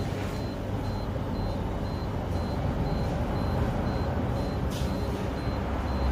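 Steady road-traffic rumble from passing cars, with a faint high-pitched pip repeating about three times a second.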